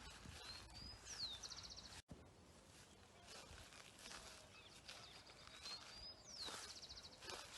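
A songbird sings a short, high phrase twice, about five seconds apart: a few rising notes, a quick downward swoop, then a fast trill. Faint rustling of bush foliage runs beneath, and the sound cuts out for an instant about two seconds in.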